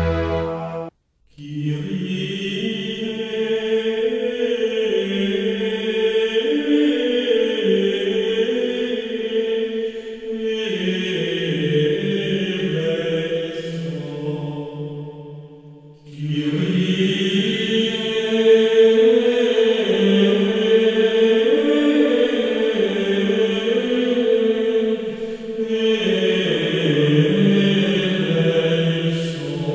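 Slow sacred chant sung by several voices together: long held notes moving in small steps, in phrases of several seconds, with a short break about 16 seconds in. The title music ends abruptly about a second in, just before the singing begins.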